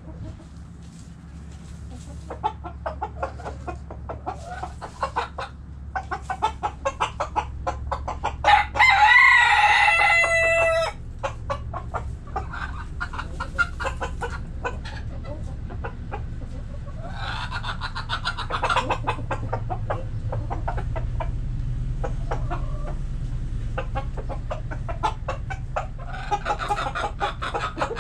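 Backyard hens clucking in short repeated calls, with a rooster crowing loudly about a third of the way in and more loud calls later.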